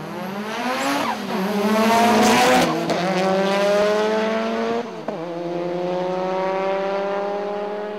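Two drag-racing cars launching off the start line and accelerating hard down the strip, the engine note climbing steadily and dropping at gear changes about a second in, around two and a half seconds, and near five seconds. It is loudest just after the launch and fades as the cars pull away.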